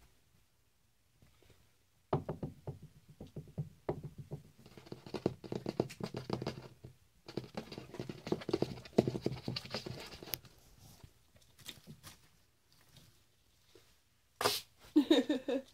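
Pet ferret scampering on a wooden floor: rapid runs of small taps and knocks in two long spells, then scattered single taps, and a short voiced sound near the end.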